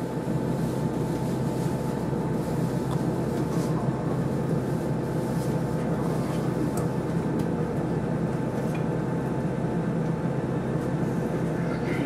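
Steady drone of a KiHa 40 diesel railcar's engine and running gear, heard from inside the carriage.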